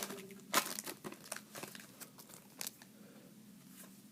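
Trading-card pack wrapper crinkling and tearing as a pack is opened and the cards handled: a series of short rustles, louder in the first half and fading toward the end.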